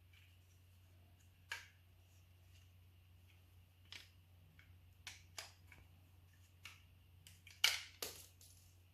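A handful of sharp clicks and snaps from small parts of a car side-mirror glass actuator being handled and worked on, the loudest near the end, over a steady low hum.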